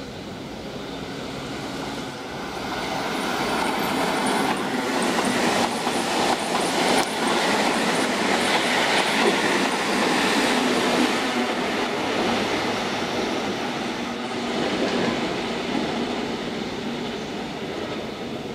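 Keihan 13000 series eight-car electric train passing through a station at speed without stopping. The rumble grows as it approaches, is loudest as the cars rush by with a run of sharp wheel clicks, then slowly fades as the train draws away.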